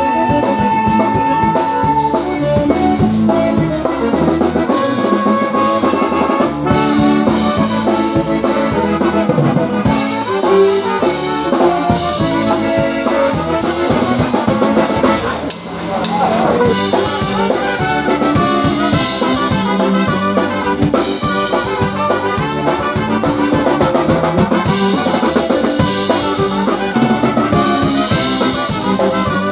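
Live polka band playing an instrumental number: a Chemnitzer-style concertina carries the tune over a drum kit keeping a steady dance beat.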